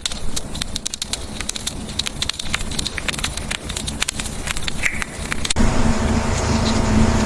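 Kittens eating strawberry: a rapid run of small wet mouth clicks from chewing and licking. About five and a half seconds in it cuts abruptly to a louder steady low hum.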